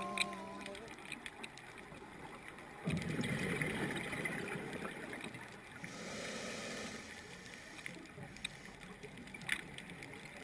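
Scuba diver breathing through a regulator underwater: a sudden gurgling rush of exhaled bubbles about three seconds in, lasting about two seconds, then a shorter, higher hiss a little later. Faint scattered clicks run throughout.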